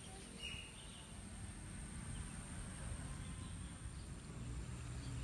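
Outdoor ambience: wind buffeting the microphone as a low, uneven rumble, with one faint bird chirp about half a second in.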